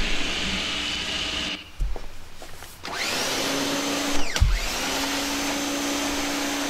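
CAT 1800 electric pressure washer running, its motor and pump humming steadily while water and foam spray. The sound breaks off about a second and a half in and comes back about three seconds in with a brief whine.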